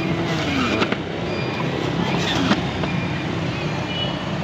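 Electric juicer's motor running steadily, grinding carrots as they are pressed down its feed chute.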